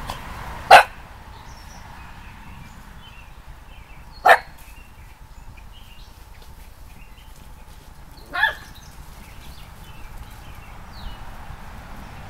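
A dog barking three single barks, about four seconds apart, the first the loudest.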